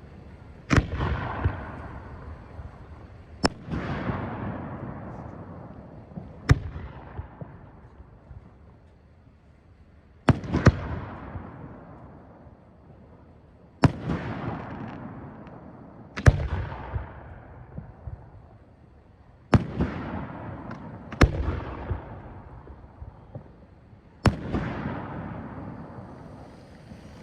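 Fireworks bursting: about nine sharp bangs a few seconds apart, each followed by a rumbling echo that fades away.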